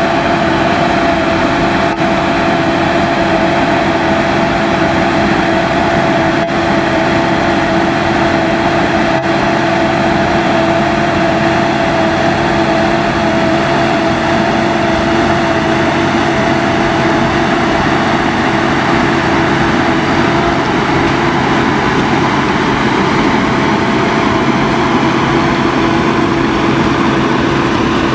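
Challenger MT765D tracked tractor working under load, pulling a Farmtec rotary plough through the soil: a steady engine and drivetrain drone with a constant whine that holds unchanged.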